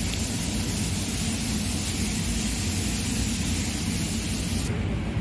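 Steady machine-like rushing noise with a low rumble underneath; the higher hiss drops away near the end.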